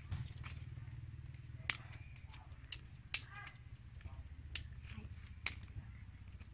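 Dry twigs snapping with sharp, separate cracks, about five of them spread over a few seconds, as kindling is broken and laid for a fire; the third crack is the loudest.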